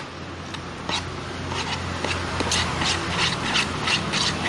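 A spoon stirring and scraping thick, clumping homemade slime in a container, made from glue, eye drops and liquid soap. It gives a run of short, wet scraping strokes, roughly three a second.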